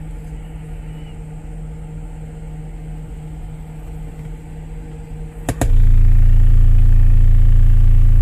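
A steady low hum, then about five and a half seconds in a click and a sudden blast of a 28 Hz test tone from the SPL subwoofer system, very loud and distorted, held to the end.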